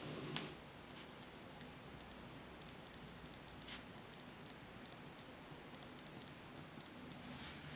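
Ballpoint pen writing on spiral-notebook paper: faint scratching with small ticks as the pen touches down, and a few slightly louder strokes, one just after the start.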